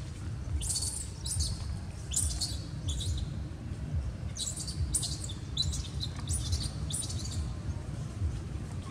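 Repeated short, high-pitched chirping calls, about a dozen over several seconds at roughly two a second, over a steady low rumble.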